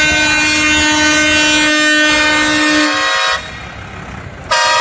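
Vehicle air horn on a parade tractor, sounding one long steady multi-tone blast that cuts off about three and a half seconds in, then a second short toot near the end.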